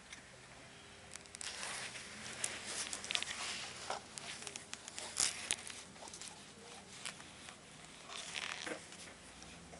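Irregular rustling with many sharp clicks: handling noise as the camera is moved about in the dark.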